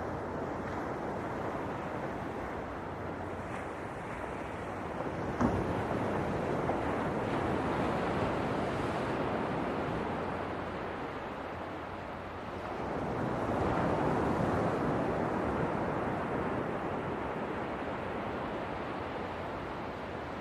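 Ocean surf: a steady rushing wash of waves that eases off and then swells into a louder surge about two-thirds of the way through. A single brief click comes about five seconds in.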